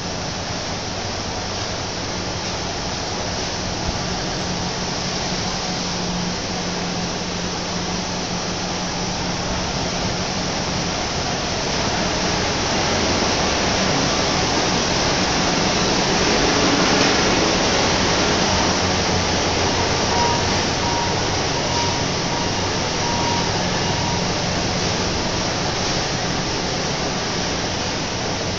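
Tissue-paper making machinery running: a loud, steady rushing noise with a low electrical hum underneath, swelling slightly about halfway through.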